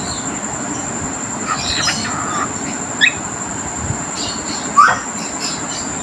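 A pet parrot giving a few short chirps and squawks, with two sharp rising calls about three and five seconds in, the second the loudest. Underneath runs a steady hiss with a thin high-pitched whine.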